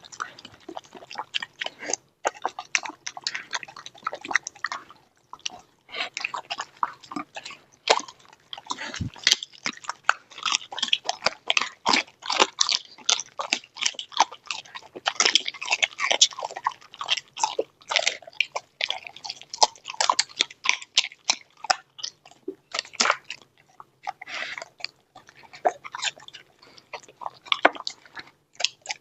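Dog chewing and crunching raw quail, flesh and bones: fast wet bites and cracks with a few short pauses.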